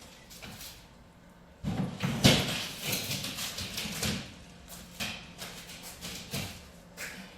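Clattering, scraping and knocking of wooden boards and panels being handled on an opened plywood crate. The sound is loudest just after two seconds in and then thins to a few separate knocks.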